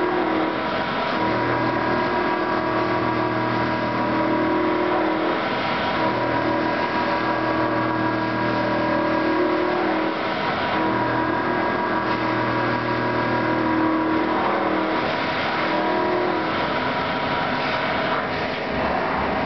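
CNC machine cutting a metal nut under a spray of coolant: a steady machine hum with fixed tones, and a lower drone that cuts in and out four times in passes of a few seconds each.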